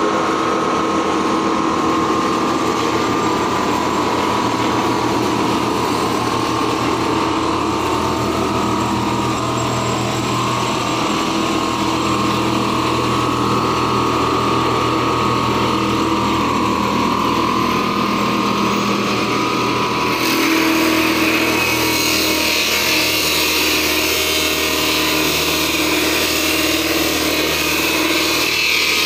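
Electric-motor-driven log-to-sawdust machine running steadily and grinding wood logs into sawdust, with a steady whine over the noise. About two-thirds of the way through the sound turns brighter and harsher.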